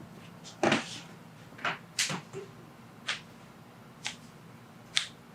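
Sounds of a chiropractic adjustment on a patient lying face up: a loud thump under a second in, then about five short, sharp cracks and clicks roughly a second apart.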